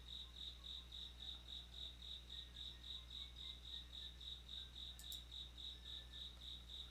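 A faint, high-pitched pulsing chirp, about five pulses a second, repeating steadily over a low hum. A single short click about five seconds in.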